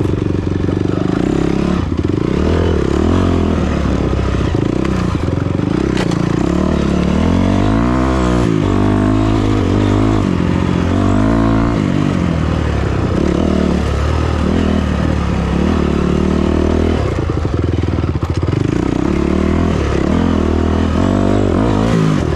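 Off-road vehicle engine running loudly, its pitch rising and falling again and again as the throttle is opened and eased, most strongly about eight to twelve seconds in.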